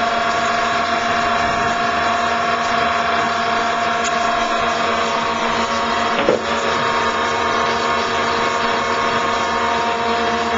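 RC model tug boat running, a steady motor hum and whine that holds one pitch throughout. A brief knock sounds about six seconds in.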